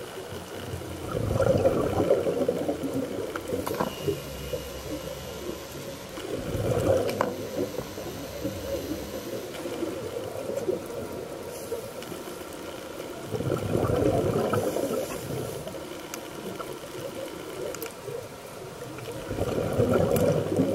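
Scuba diver's exhaled bubbles from the regulator, heard underwater as four swells of bubbling about six seconds apart over a steady underwater hiss.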